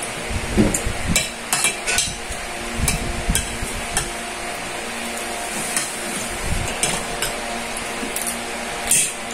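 Spoon and plates clinking and scraping during a meal, in scattered sharp clicks and taps, over a faint steady hum.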